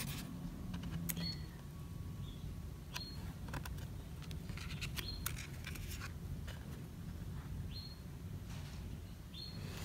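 Oracle cards being handled: faint clicks and rustles of card stock sliding and tapping as one card is moved aside and the next is brought forward, over a low steady hum, with a few brief high chirps.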